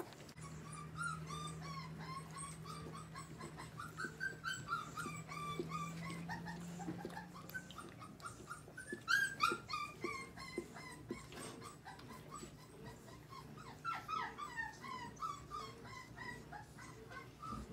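Four-week-old mastiff puppies whimpering and squeaking while they nurse: many short, high squeaks overlapping, loudest about nine seconds in. A low steady hum runs underneath.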